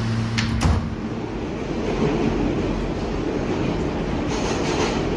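R160 subway car running on the rails, heard from inside the car: a steady rumble of wheels on track, with two sharp clicks about half a second in, a low hum that stops just after, and louder clatter about four seconds in.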